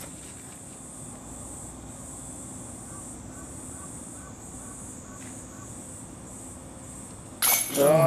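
Steady high-pitched insect drone from the surrounding trees, pulsing slightly. Near the end a sudden loud sound with a wavering pitch cuts in.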